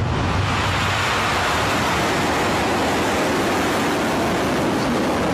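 Rocket Lab Electron's nine Rutherford first-stage engines firing at full thrust just after liftoff: a loud, steady rushing noise.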